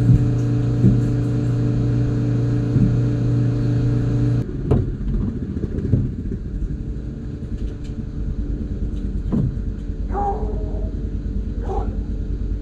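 Engine running with a steady hum that changes abruptly about four and a half seconds in to a lower, rougher rumble with a few knocks.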